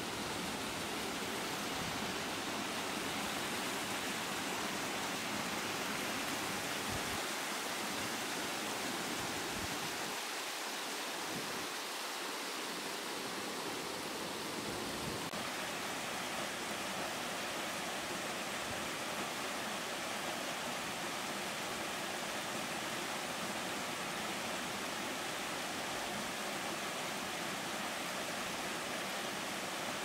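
Small waterfall splashing over rocks into a pool: a steady rush of falling water, its tone shifting slightly about halfway through.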